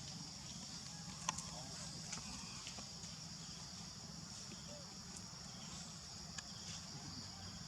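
Steady outdoor ambience: a constant high insect drone over a low steady hum, with faint voices and a sharp click about a second in.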